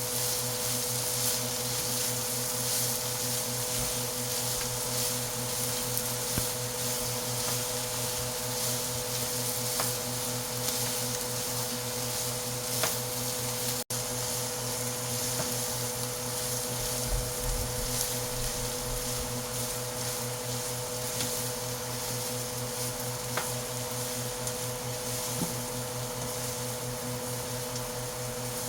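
Boiled chickpeas frying in butter in a pan, sizzling steadily with scattered small pops, over a steady low hum.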